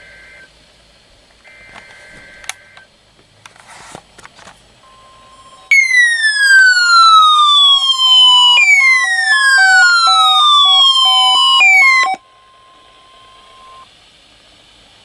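NOAA weather radios receiving a Required Weekly Test: short warbling SAME data bursts, then a steady high tone. About six seconds in the radios' alarms go off, a loud falling siren sweep heard twice and cut short on a third, over a pulsing beep; all of it stops together about twelve seconds in.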